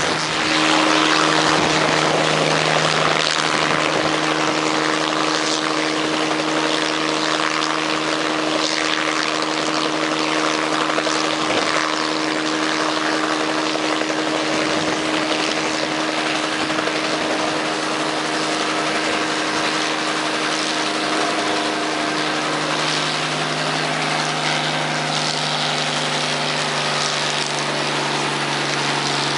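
1966 Bell 47J2-A helicopter's Lycoming VO-540 six-cylinder piston engine and rotors running steadily on the ground. The engine note steps lower about three quarters of the way through as the rpm comes down.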